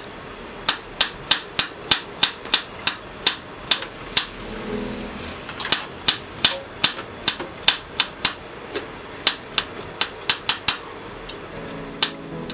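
Chef's knife mincing garlic on a hard cutting board: rapid sharp clicks of the blade striking the board, about three a second, in short runs with brief pauses.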